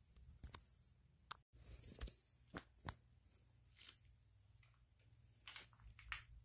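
Faint handling noise: scattered light clicks and short rustles over a low, steady hum.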